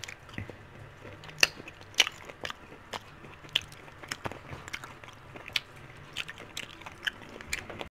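Crunching and chewing of a breaded fried chicken wing: irregular sharp crunches, several a second, the loudest about one and a half and two seconds in.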